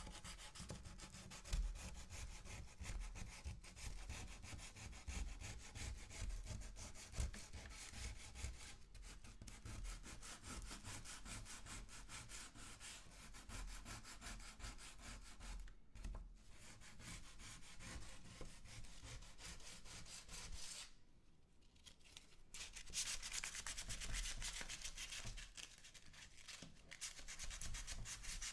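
Sandpaper rubbing over wood in quick, continuous strokes, with a brief pause about 21 seconds in before the sanding resumes.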